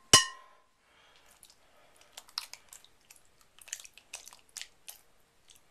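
One loud ringing metal clang just after the start, then a scattered run of small taps and scrapes of metal on metal as chopped tinned tomatoes are poured and scraped from a metal bowl over cabbage rolls in a Dutch oven.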